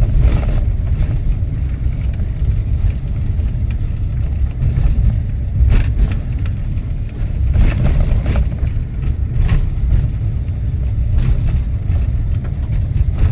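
Steady low rumble of a vehicle driving on a rough road, engine and tyres, with a few sharp knocks and rattles from bumps.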